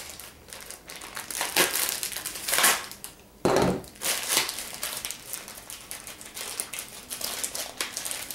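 Clear plastic bag crinkling and rustling in irregular bursts as it is handled and opened, with a heavier dull thump about three and a half seconds in.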